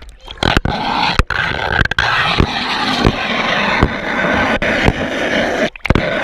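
Water rushing and splashing over a waterproof camera sliding down a water slide, with repeated thumps as it bumps along the slide. The noise drops out briefly near the end.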